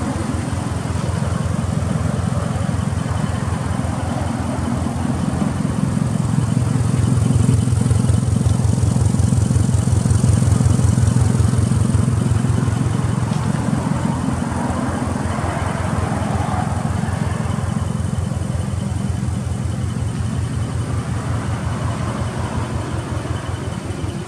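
Subaru Impreza WRX's EJ20 turbocharged flat-four idling steadily, heard through an aftermarket muffler as an even, rapid exhaust pulse. It grows a little louder for a few seconds in the middle.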